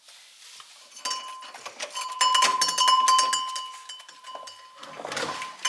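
A small bell jingling: many quick metallic clicks over a steady ringing tone for about three seconds, starting about a second in, then a brief rustle near the end.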